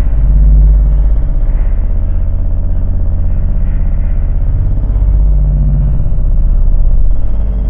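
Loud drone music: a dense, heavy low bass drone with a fast, even pulsing flutter and little in the high range.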